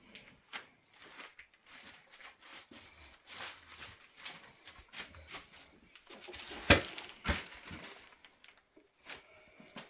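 Irregular knocks, clicks and scrapes of natural stone cladding tiles being handled and set against a wall, with one sharp, loud knock about two-thirds of the way through.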